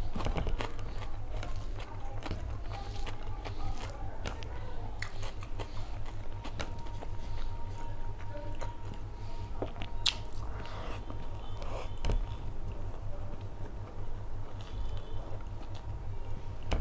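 Close-miked chewing and wet mouth sounds of a person eating rice and curry by hand, with fingers squishing and mixing the rice on the plate, over a steady low hum.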